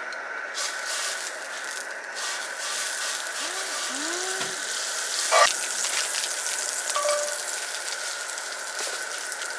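Food sizzling in a pan, a steady hiss, with one sharp knock about five and a half seconds in.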